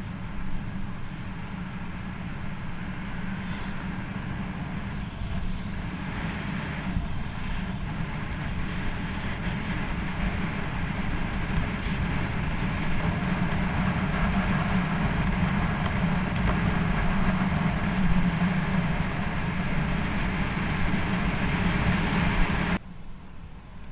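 Wind buffeting the action camera's microphone, with mountain-bike tyres humming on asphalt, as the bike rides along a paved road. The rushing noise slowly grows louder and then cuts off abruptly near the end.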